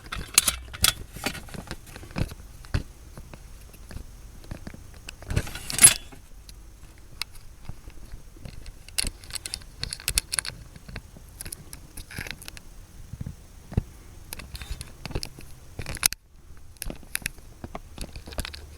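Small metal tools and parts clinking and rattling as they are handled, in scattered short clicks with a louder clatter about six seconds in.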